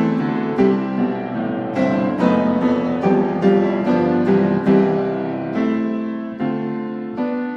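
Background music on piano, notes and chords struck one after another about twice a second.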